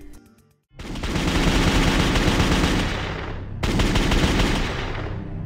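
Sound effect of rapid automatic gunfire for a logo sting: after a brief silence, a long loud burst, a split-second break, then a second burst that tails off.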